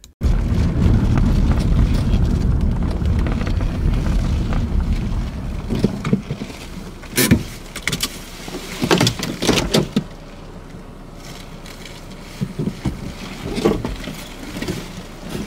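Loud low rumbling noise that starts suddenly, stays strong for about five seconds and then eases off, with a few sharp clicks and knocks over it in the middle and near the end.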